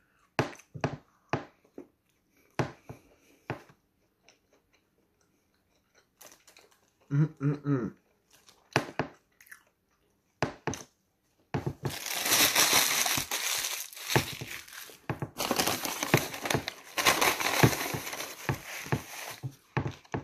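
A person chewing a McDonald's Junior Chicken sandwich, with short scattered crunches and pauses. Over the second half, loud continuous crinkling and rustling of a paper bag and sandwich wrapper as the bag is searched.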